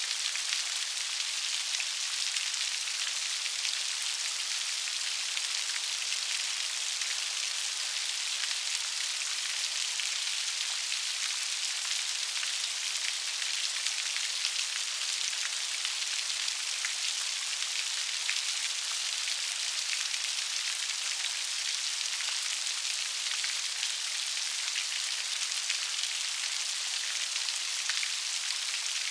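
Steady rain falling, a dense even hiss of many small drop ticks on a hard surface, with no thunder or wind.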